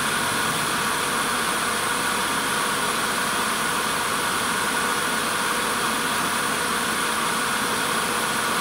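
Wood lathe running steadily while a lathe knife cuts into the spinning wooden spindle, an even hiss with a faint steady hum.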